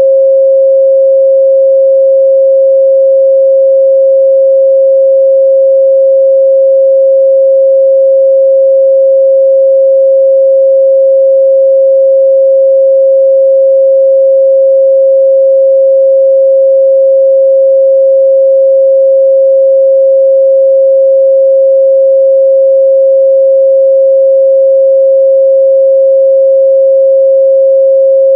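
A steady 538 Hz sine-wave test tone, one pure pitch held at constant loudness, used for checking a speaker's or headphone's midrange response.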